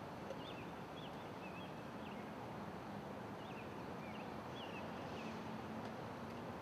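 Steady outdoor background noise with a small bird chirping in two short runs of quick, squeaky notes, the first right at the start and the second about three and a half seconds in.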